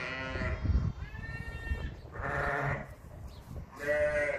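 Ewes and newborn lambs bleating: about four calls one after another.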